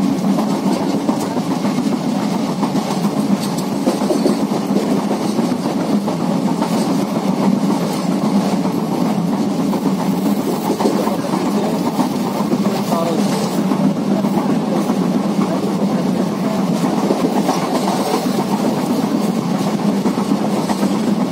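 Passenger train running steadily over a river bridge, heard from inside a coach at an open window: a loud, even rumble of wheels on the rails with light rattling throughout.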